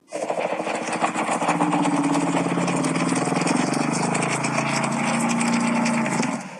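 A long, low rattling creature growl with a fast pulsing texture, held steady for about six seconds and cut off sharply at the end.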